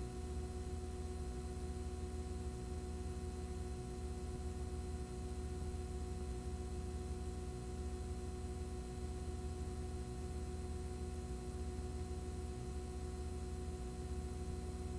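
Steady electrical hum with a few fixed whining tones and a faint hiss, unchanging throughout, with no programme sound over it.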